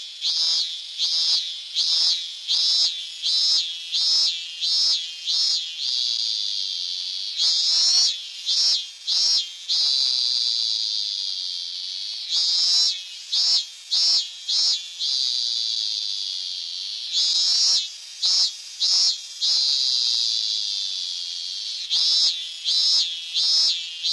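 Hyalessa fuscata cicada singing. Runs of sharp, evenly spaced pulses, about one and a half a second, alternate with a steady high buzzing drone, and the phrase repeats several times.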